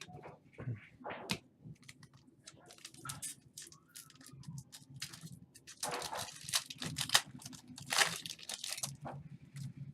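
Trading-card pack wrapper being torn open and crinkled, with cards rustling and sliding in hand; the loudest tearing noises come about six and eight seconds in.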